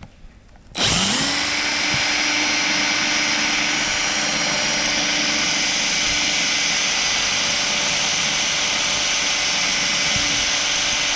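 Electric drill spinning up about a second in, then running steadily at full speed while drilling out a snapped bolt in a pit bike's steel frame.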